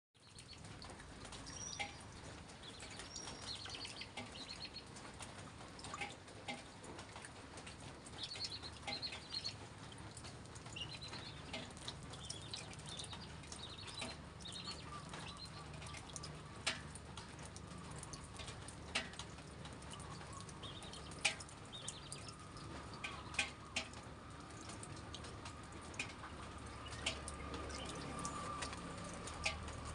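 Oil sizzling in a nonstick frying pan as minced garlic and a red chili fry, with many scattered sharp pops and crackles.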